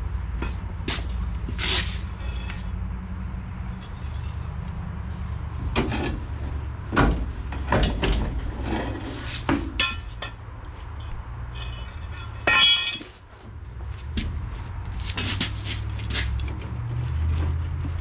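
Scattered sharp metal clanks and knocks from work on a stripped 1955 Chevy body being pried loose from its frame, with a brief ringing metallic rattle about twelve seconds in. A steady low hum runs underneath.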